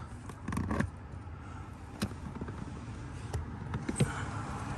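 Plastic interior trim panel being pried and unclipped: a short scraping rustle just under a second in, then a few sharp plastic clicks and knocks.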